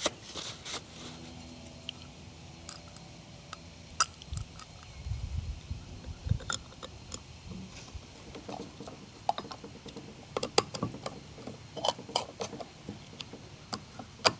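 Small clicks and light metal taps of hand work on the chute blocker's gear motor housing: the back plate being set in place and its screws started. There is a brief low rumble about halfway through.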